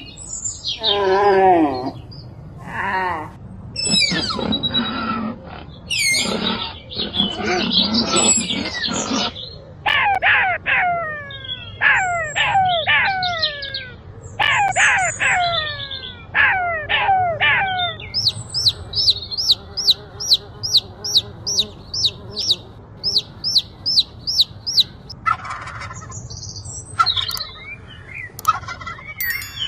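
A run of different bird and fowl calls one after another: mixed calls at first, then groups of calls that fall steeply in pitch, then a long stretch of fast, high, repeated chirps about three a second, then other calls near the end.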